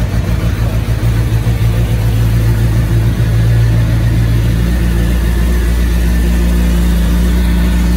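Suzuki GSX-R750's inline-four engine idling just after starting, running loud through an open header with the stock muffler removed. The note is steady and gets a little louder about three seconds in.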